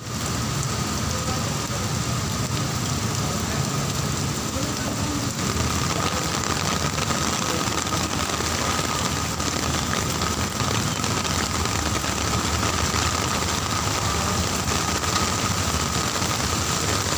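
Heavy rain falling in a steady hiss, with the low rumble of traffic underneath and a faint steady tone.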